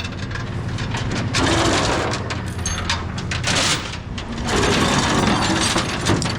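Tie-down chain clinking and rattling as it is handled and laid across the load, over the steady low hum of an engine running.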